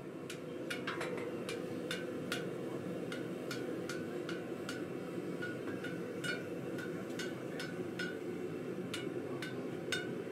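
Hand hammer striking hot iron over a steel cone mandrel in an even rhythm of about two to three sharp, briefly ringing blows a second, over a steady low background noise.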